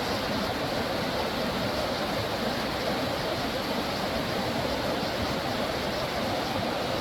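Steady rushing of a stream's water, an even noise with no breaks.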